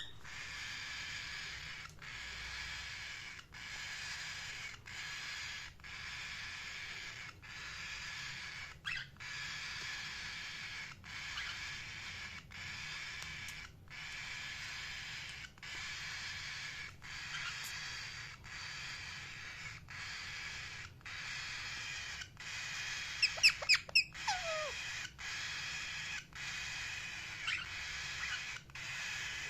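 Indian ringneck parrot calling: a few short chirps, then a burst of loud, sharp calls that sweep down in pitch a little over two thirds of the way in. Behind them runs a steady high din, broken by brief gaps at regular intervals.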